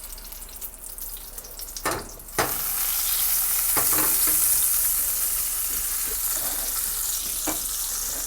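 Butter sizzling in hot olive oil in a frying pan. A faint hiss and a couple of knocks come first; about two and a half seconds in, the sizzle turns suddenly loud and stays steady.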